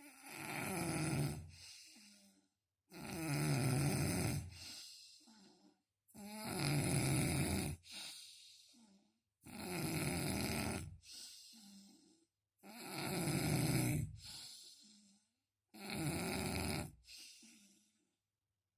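A sleeping person snoring: six snores about three seconds apart, each a long snore followed by a shorter, softer breath.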